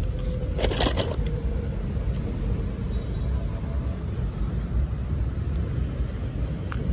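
Steady low outdoor rumble with a faint, thin high tone running through it, and a few sharp clicks about a second in.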